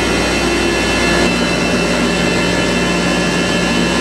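Thickness planer running with its dust collector, a loud steady machine noise as a board is fed through for a thicknessing pass. The tone shifts about a second in.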